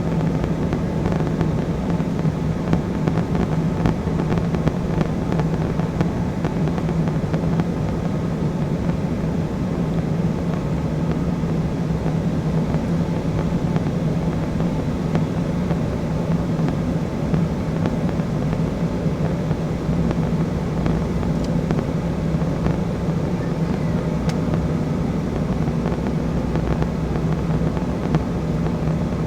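Steady cabin noise inside an Embraer E175 jet during descent: its two GE CF34 turbofan engines and the rushing airflow, with an even low drone underneath.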